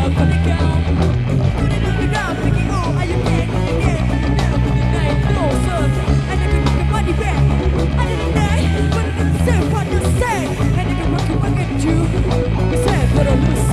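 Live rock band playing an instrumental stretch of the song, with guitar lines full of sliding notes over bass and drums.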